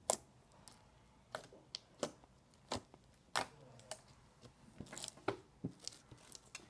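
Large beaded slime being squished and pulled by hand, giving irregular sharp pops and crackles, with a quick cluster of them about five seconds in.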